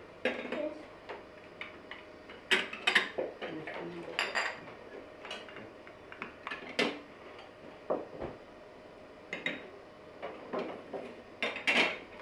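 Scattered light clinks and knocks of tableware: glass tea cups set on saucers and teaspoons tapping against glass, a dozen or so short sharp strikes at uneven intervals.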